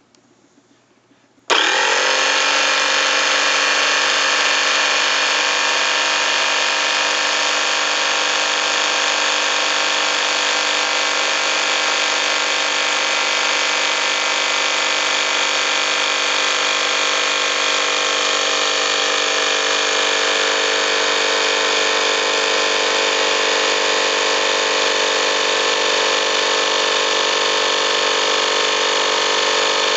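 Campbell Hausfeld FP2028 1-gallon air compressor switched on about a second and a half in, its motor and pump then running steadily as it fills the tank and builds pressure.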